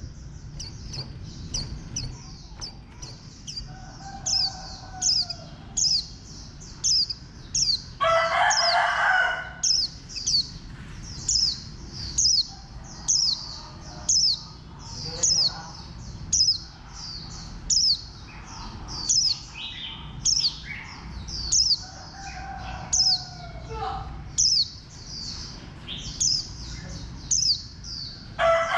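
White-eye calling over and over, short high chirps that each drop in pitch, roughly one a second. A rooster crows once about eight seconds in.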